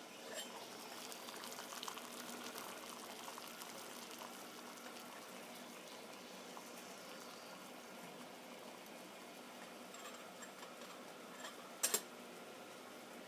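Water boiling in a Stanley 24-ounce pot over a homemade alcohol stove: a faint bubbling and crackling, busiest in the first few seconds. Two sharp clicks close together near the end are the loudest thing.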